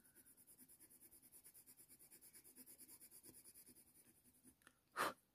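Faint, quick, even strokes of a Faber-Castell Polychromos coloured pencil scratching over hot-press watercolour paper, stopping about four seconds in. A brief louder sound follows near the end.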